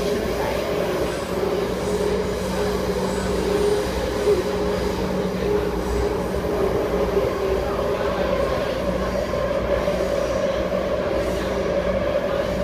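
Metro train car running, heard from inside the car: a steady rumble with a constant whine riding over it.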